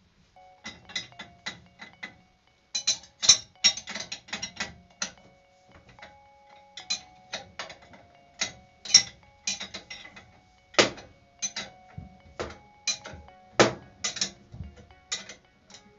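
Ratcheting wrench clicking in short quick runs as the flange bolts of a circulator pump are tightened, with a few louder clicks near the end.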